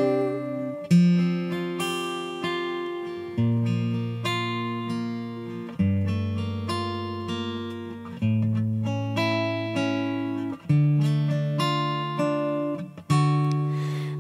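Solo acoustic guitar playing an instrumental passage: plucked chords over a bass note that changes about every two and a half seconds, each note ringing and fading before the next.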